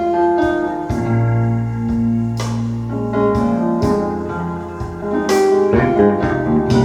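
Slow blues ballad played back over hi-fi speakers: an instrumental passage of piano or keyboard chords over a bass line, with a few sharp strokes.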